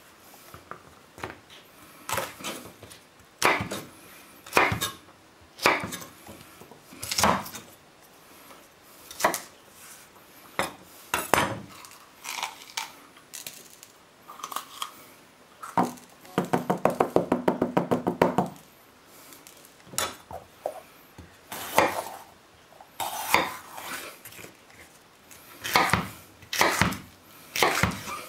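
Chef's knife chopping red bell peppers on a wooden chopping board: separate sharp knife strikes every second or so. Partway through comes a fast, even rattle of taps lasting about two seconds.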